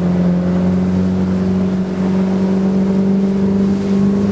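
Speedboat engine running steadily at speed while towing a tube, its note creeping slightly higher in pitch, over a steady rushing noise.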